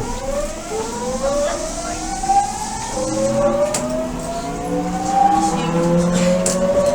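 Mitsubishi GTO-thyristor VVVF inverter and traction motors of an Odakyu 1000-series train whining as it accelerates. Several tones climb in pitch together, and the pattern drops back and climbs again a few times as the inverter shifts modes, over steady rail running noise.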